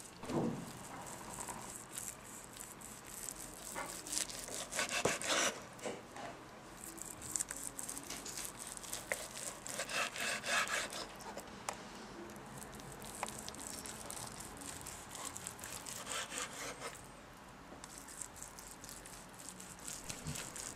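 A long kitchen knife sawing back and forth through cold boiled veal on a wooden cutting board. It comes in irregular bouts of scraping strokes, with a few sharp taps of the blade against the board.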